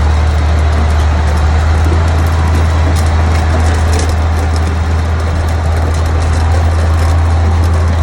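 Caterpillar D10T bulldozer's C27 diesel engine running steadily: a loud, constant low drone.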